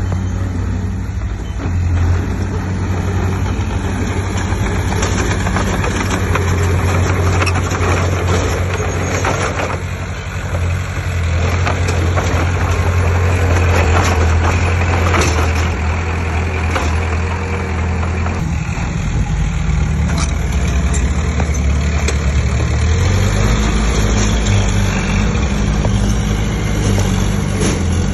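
Heavy diesel earthmoving machinery running, with a deep, steady engine note that dips briefly about ten seconds in and changes pitch around eighteen seconds, with occasional clatter in between.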